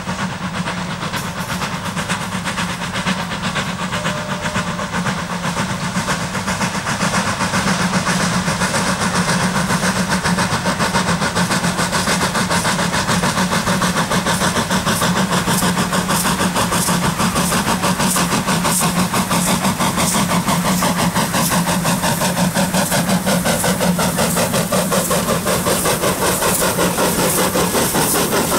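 Saddle-tank steam locomotive working hard up a grade, its exhaust beating in a quick, steady rhythm with steam hissing around the cylinders. It grows louder about seven seconds in as it draws close.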